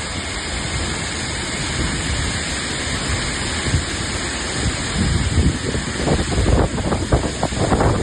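Storm rain and wind, a steady heavy hiss. From about halfway through, gusts buffet the microphone in irregular low rumbling surges.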